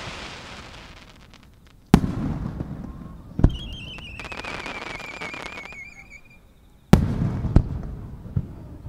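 Aerial firework shells bursting: a sharp boom about two seconds in, another a second and a half later, and a third about seven seconds in followed by two smaller reports, each trailing off in a long echoing rumble. Between the booms a falling, warbling whistle and a scatter of crackles.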